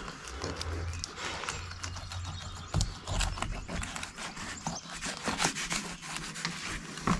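Fillet knife sliding along a bullhead catfish's backbone toward the tail, a run of small clicks and crackles as the blade passes over the bones. The clicks come thickest in the second half.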